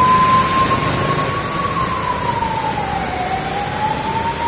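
Heavy rain and cars driving through floodwater on a city street make a steady rushing hiss. Over it, a single high tone holds, dips slowly in pitch about three seconds in, and rises again.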